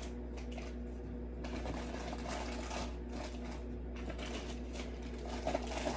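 A steady low electrical hum, with faint rustles and light ticks from small objects being handled.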